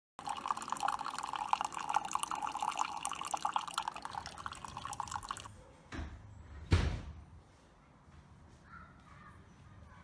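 A single-serve coffee maker dispensing coffee into a mug with a spluttering, dripping stream that stops abruptly about five and a half seconds in. Two short knocks follow less than a second apart, the second louder.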